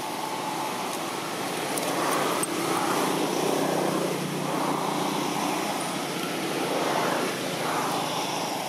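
Road traffic: vehicles passing by, their engine and tyre noise swelling and fading several times.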